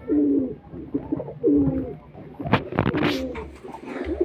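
Male pigeon's courtship cooing: low, repeated coo phrases. About halfway through comes a brief cluster of sharp clattering sounds, and the cooing starts again near the end.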